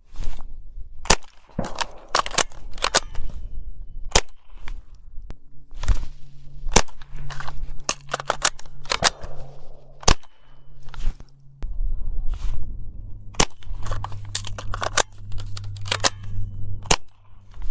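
Gunfire from a GSG-15 semi-automatic .22 LR rifle during a shoot-and-reload drill: many sharp shots, several in quick succession, mixed with the metallic clacks of a fumbled magazine change. A low steady hum comes in about five seconds in.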